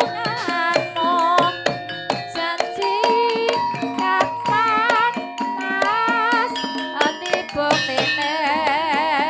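Javanese Banyumasan gamelan music: kendang hand-drum strokes and struck metallophone notes under a wavering vibrato melody line. A low bass tone enters near the end.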